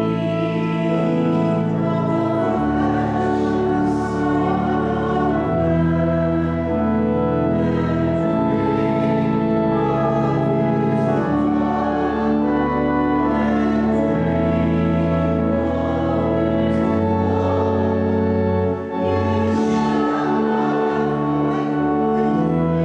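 Hymn with organ accompaniment playing sustained chords over a moving bass line, and a congregation singing along. A short break between phrases comes about 19 seconds in.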